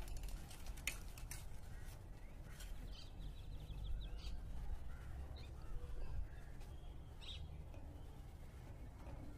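Birds calling now and then over a steady low rumble, with a short run of fast ticks about three seconds in.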